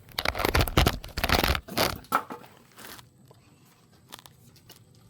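Greased brake caliper slide pin being pushed and worked back into its bore, giving rough scraping and rubbing noises for about three seconds. A few light clicks follow.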